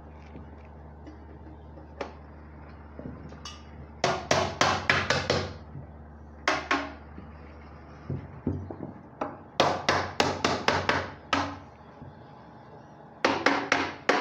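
Hammer tapping on aluminium window-frame sections as the outer frame's corners are joined with angle pieces. The sharp, ringing strikes come in three quick runs of about five to eight blows each, with a single blow between the first two runs, over a low steady hum.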